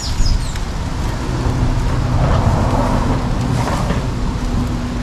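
A steady low motor hum, like an engine idling, with a rush of noise that swells up in the middle.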